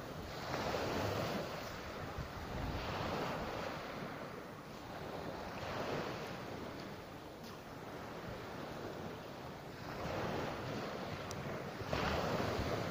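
Small sea waves breaking and washing up onto a pebble beach, surging every few seconds, with the biggest wash near the end.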